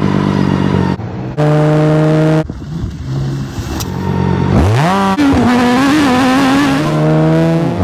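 BMW K1600GT's inline-six engine in cut-together clips. It runs at a few steady pitches that change abruptly, then revs up sharply about four and a half seconds in and holds a higher, wavering note as the bike rides at speed.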